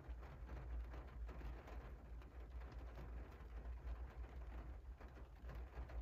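Rain falling on a window pane: a soft, even patter with faint scattered drop ticks over a steady low rumble.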